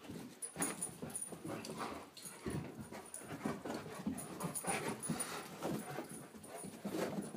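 Great Pyrenees puppy and a bigger dog playing chase: a dense, irregular run of paw thuds and scuffles, with dog sounds mixed in.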